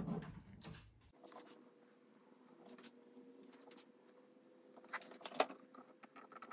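Faint, scattered clicks and taps of a metal socket and a small utility blade being handled on a cork gasket sheet laid on a steel workbench.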